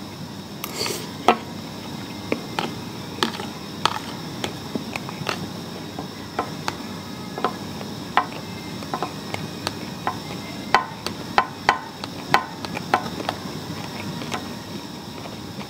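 Metal spoon clicking and scraping against a plastic lunchbox as someone eats, in irregular sharp clicks, with a quick run of them a little over ten seconds in.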